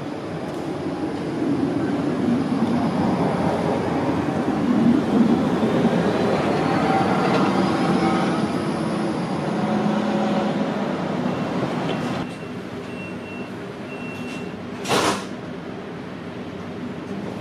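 Light-rail tram rolling in on street track and passing close by, with a faint rising motor whine. After a sudden drop in level, the steady hum inside a moving tram carriage, a few short high beeps, and a brief loud burst of noise about fifteen seconds in.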